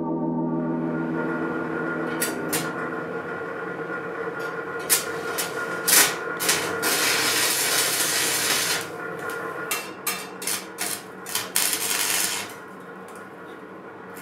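Stick-welding arc on rusty steel scrap, crackling in a run of short bursts with one longer stretch of about two seconds in the middle.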